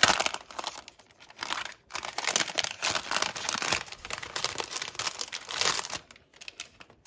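A crinkly package of stickers being worked open by hand, crackling and rustling in dense bursts with short pauses, dying down about six seconds in.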